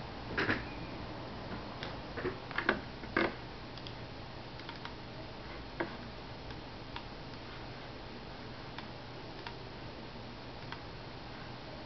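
Light clicks and taps, several close together in the first three seconds and then sparse single ticks, over a steady low hum.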